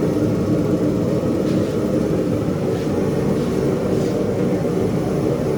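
Blacksmith's forge running steadily, a constant low rushing noise of its burner or blower while the stock heats.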